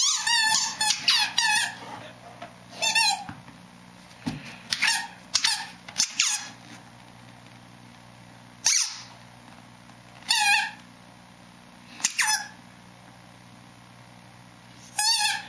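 Squeaky ball toy being pressed by a dog, giving short squeaks with a wavering pitch: a quick run of squeaks at first, then single squeaks every two seconds or so.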